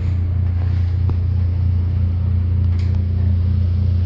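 Steady, loud low mechanical hum with a deep drone and a fainter tone above it, unchanging throughout.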